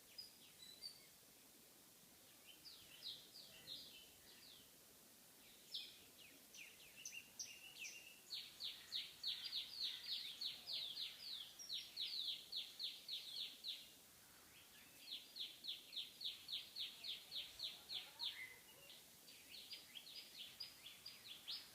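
Birds giving long, rapid series of sharp, falling alarm notes, about four a second, in bouts that stop and restart: the harsh calling of birds mobbing a snake.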